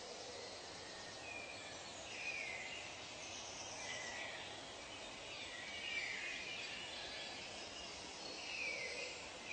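Nature ambience: birds call with short, falling chirps every second or two over a steady hiss.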